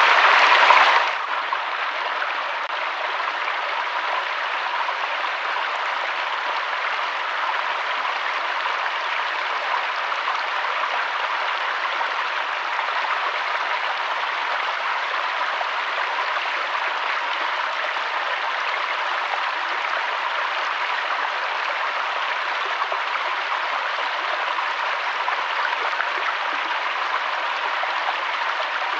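Flowing water running steadily with an even hiss. It drops to a lower level about a second in and then holds steady.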